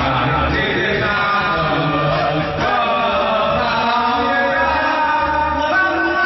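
A group of people singing together loudly over karaoke backing music.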